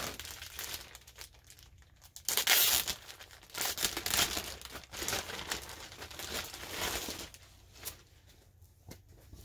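Clear plastic poly bag crinkling and rustling in irregular bursts as it is handled and opened, loudest about two and a half seconds in and quieter near the end.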